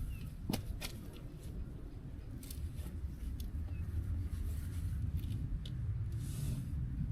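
Wind rumbling on the microphone, with scattered small clicks and rustles and a brief hiss about six seconds in.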